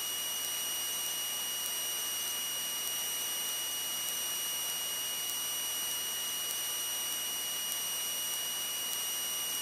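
Steady hiss with a constant high-pitched whine, the background noise of a light aircraft's headset intercom audio feed.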